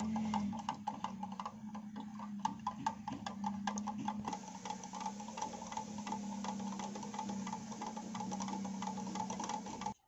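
Wooden stick stirring thinned paint in a metal tin, knocking and scraping against the can in quick irregular clicks, over a steady hum.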